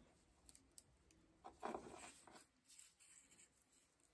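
Near silence with a few faint clicks and soft scrapes: an antique brass light socket being worked by hand to ease its casing off.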